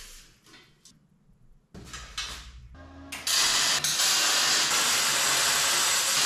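A loud, steady hiss, like rushing air or spray, starts suddenly about three seconds in after a few short, quieter knocks and rustles.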